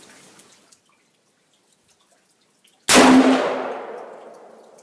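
An AR-15 rifle in .223 fires a single shot about three seconds in: a sharp report followed by an echoing tail that fades over about a second and a half.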